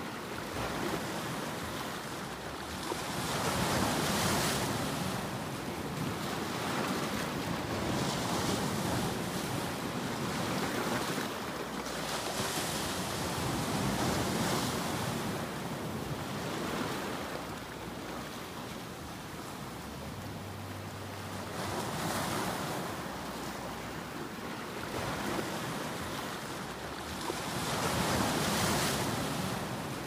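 Ocean surf breaking and washing up a beach, a steady rushing wash that swells and eases in surges every few seconds.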